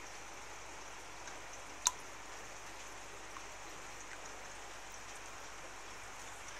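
Steady faint watery hiss, with one sharp click like a drip about two seconds in.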